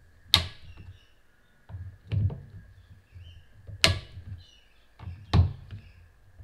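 A torque-limiting screwdriver tightening steel scope-ring screws, with three sharp clicks as it reaches its set torque of 10 inch-pounds and a weaker click between. Low handling and rubbing sounds fill the gaps.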